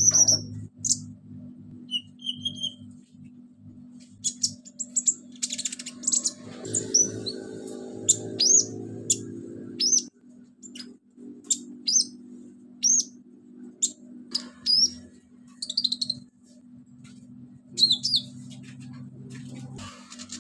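Ruby-cheeked sunbird singing a string of short, sharp, high chirps and quick whistled notes at uneven intervals. A steady low hum runs underneath.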